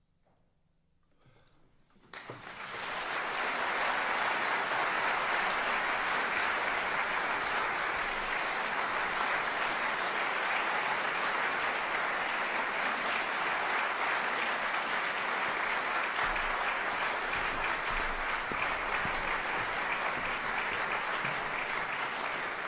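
Concert audience applauding: after a brief hush, the clapping breaks out about two seconds in and keeps going steadily.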